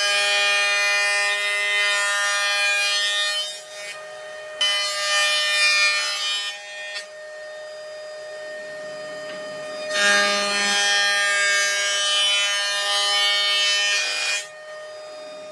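Jointer (surface planer) running, its cutterhead shaving a board in three loud passes of about four, two and four seconds, with the machine's steady whine carrying on between passes.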